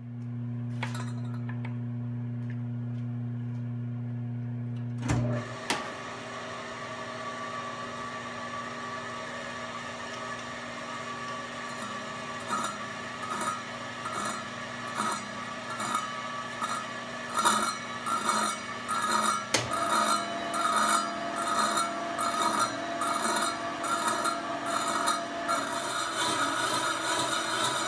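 Horizontal milling machine cutting through a solid aluminium bar with an old circular saw blade on its arbor. A steady motor hum changes about five seconds in to a harsh scraping and rasping as the blade bites into the metal, and from about halfway the cut pulses evenly, about one and a half times a second.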